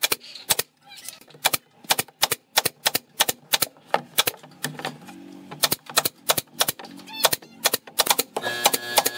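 Pneumatic brad nailer firing nails into pine boards in quick succession, about three sharp shots a second, with a brief pause midway. Background music comes in near the end.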